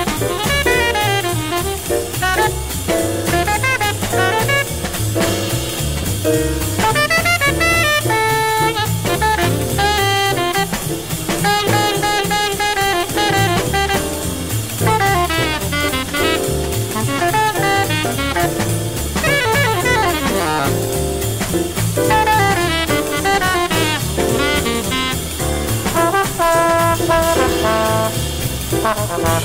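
Hard bop jazz recording by a sextet of trumpet, alto saxophone, trombone, piano, bass and drums: horn lines running over the drum kit and bass.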